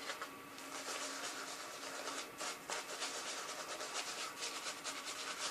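Shaving brush working lather, a faint rubbing in a fast, even rhythm of strokes.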